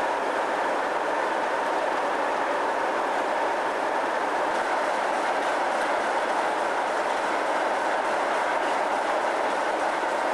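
Pair of English Electric Class 37 diesel-electric locomotives running, their 12CSVT V12 diesel engines giving a steady, unchanging drone.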